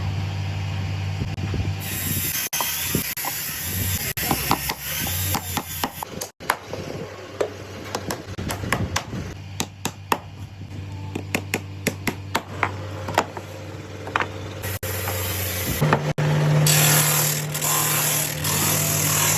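Factory machinery at work: a steady low mechanical hum with many quick clicks and knocks, and a long hissing stretch near the start and another near the end.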